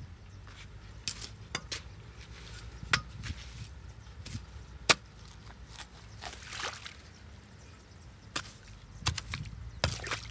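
A long-handled digging tool chopping into matted grass, roots and mud clogging a culvert mouth, with a string of irregular sharp chops, the loudest about five seconds in. Near the end the strikes come closer together and muddy water splashes as the debris is pulled loose.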